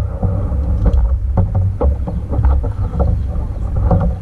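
Steady low rumble on a camera mounted on a kayak drifting on a river, with scattered small knocks and clicks throughout.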